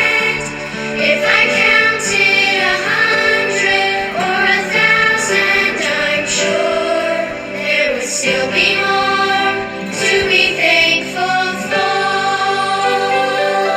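A Christian thanksgiving song playing, with singing over instrumental backing.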